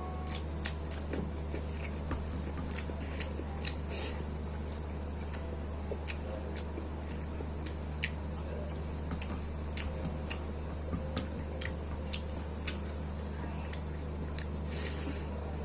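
A person chewing and biting food, with frequent short, sharp mouth clicks and smacks. A steady low hum runs underneath.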